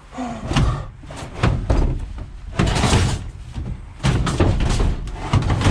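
Repeated heavy bangs and scraping of a metal tumble dryer being manhandled and loaded into a van, about one knock or clatter a second.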